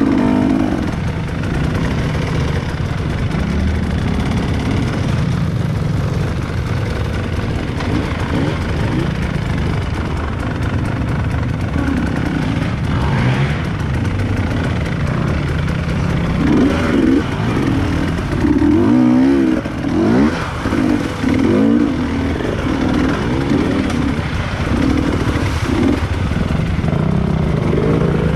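Off-road trail motorcycle engines running, revved up and down again and again, most strongly from about 16 to 22 seconds in.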